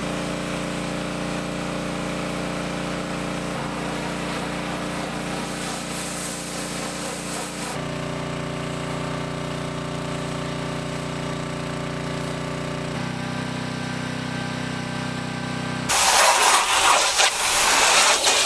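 Gas pressure washer's small engine running steadily, its note shifting abruptly twice. About sixteen seconds in, the loud hiss of the high-pressure water spray comes in.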